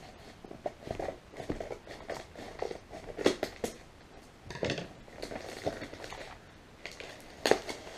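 Small scissors snipping through parcel tape on a cardboard box, and crumpled paper packing rustling and crackling as it is handled, in irregular short clicks and crinkles.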